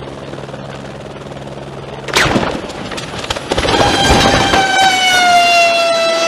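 Light helicopter hovering with a steady rotor drone, then about two seconds in it crashes: a sharp bang and a quick run of smashing blows as the rotor blades hit the ground. A loud steady whining tone then sets in, drops slightly and holds.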